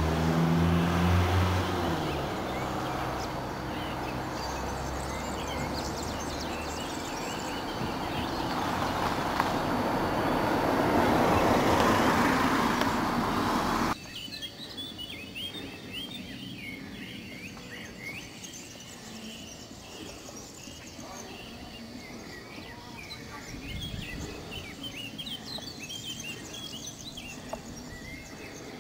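Loud rushing noise, swelling to a peak and then cutting off abruptly about halfway through, followed by quieter outdoor ambience with many birds chirping.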